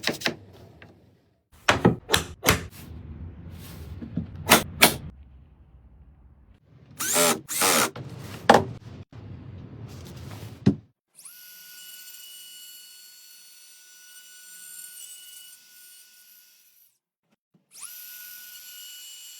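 A series of wooden knocks and taps, then a wood router's motor running with a steady high-pitched whine from about halfway through; it cuts out briefly and spins up again near the end.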